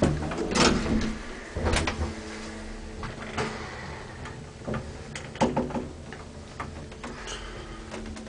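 An old elevator working: a series of clunks and knocks, with a steady low hum from about a second and a half in.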